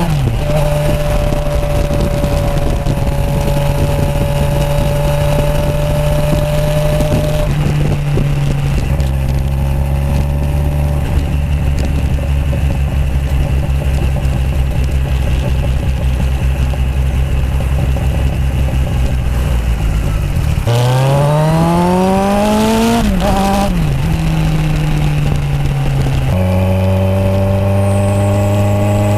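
Kawasaki Z1000 inline-four motorcycle with aftermarket exhausts being ridden on the road: the engine runs at steady throttle for long stretches, then revs hard about 21 seconds in, with a gear change near 23 seconds before settling again.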